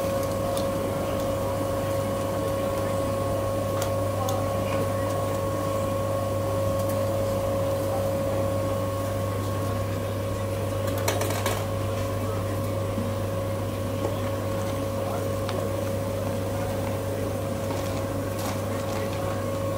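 Gas-fired rotisserie with spits of whole chickens turning: a steady mechanical hum with a constant whine, and a brief noise about eleven seconds in.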